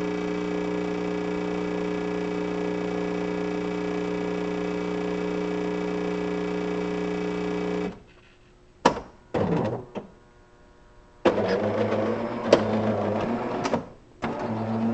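Jura X9 super-automatic espresso machine running through the espresso stage of its macchiato cycle: a steady mechanical hum that stops abruptly about eight seconds in, followed by a few short whirs and clicks from the machine.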